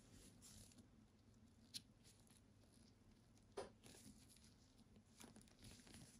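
Near silence with faint handling noise: gloved hands rustling against a wristwatch and its cushion, with two small clicks about two seconds apart.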